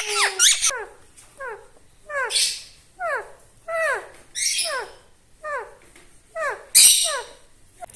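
Pet parrot calling: a run of about ten short calls, each sliding down in pitch, under a second apart, mixed with harsh screeches, the loudest a little before the end.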